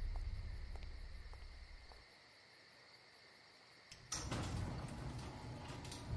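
Crickets chirping faintly in the night over a low hum that fades out in the first two seconds. About four seconds in, a sharp click and a sudden rise in noise.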